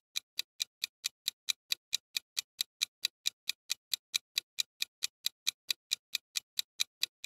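Clock-ticking sound effect under a quiz countdown timer: even, sharp ticks at about four a second, growing louder over the first half-second and then holding steady.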